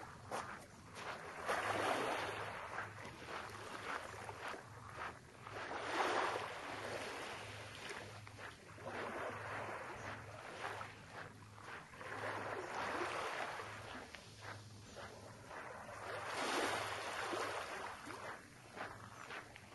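Small waves washing up on a sandy beach at the water's edge. The wash swells and fades every three to four seconds.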